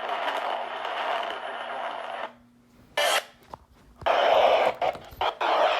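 Radio static: a steady hiss with a low hum that cuts off about two seconds in, then a sharp burst of static, and louder crackling static with clicks from about four seconds in.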